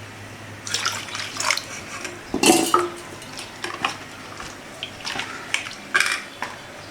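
A spoon stirring thin ragi and rava dosa batter in a bowl, clinking and scraping against the sides, with a few sharper knocks.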